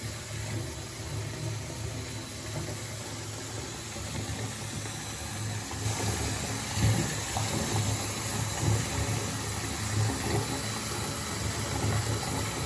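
Water pouring from a bath tap into a partly filled bathtub, a steady splashing rush with a low churning gurgle, louder from about halfway through.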